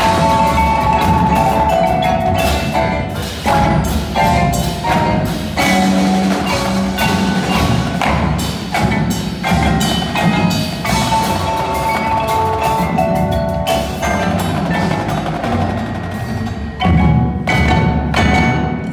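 Winter percussion ensemble playing: marimbas and other mallet keyboards ringing over a dense stream of sharp drum hits, with a loud accent about seventeen seconds in.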